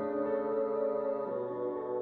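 Calm ambient background music of soft sustained tones, moving to a new chord a little past halfway.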